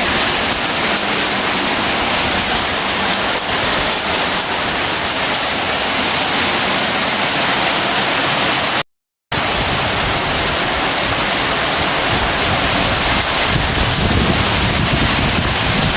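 Heavy rain pouring down, a loud, steady hiss. It breaks off into silence for a split second a little past halfway.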